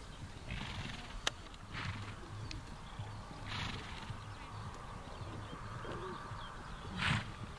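Estonian Native horse cantering on a sand arena: soft, muffled hoofbeats with several loud blowing snorts a second or two apart, the loudest near the end, and one sharp click just over a second in.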